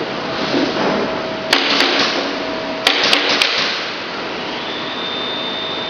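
Sharp metallic clicks from the foil-feed guide rods and rollers of a manual hot foil stamping machine being handled: two about a second and a half in, then three in quick succession about a second later. They sit over a steady hiss, and a faint high whine sets in near the end.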